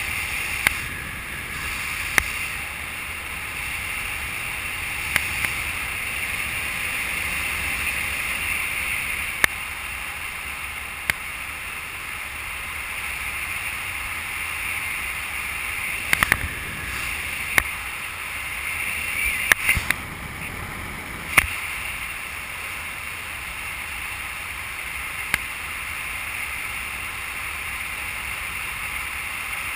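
Steady wind rushing over a skydiver's camera during a descent under an open parachute, a hiss with a bright band in the upper mids. About a dozen sharp clicks are scattered through it, a few of them in quick clusters about halfway through.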